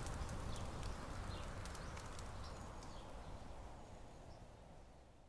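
Faint outdoor ambience with scattered small clicks and a few short bird chirps, fading out steadily.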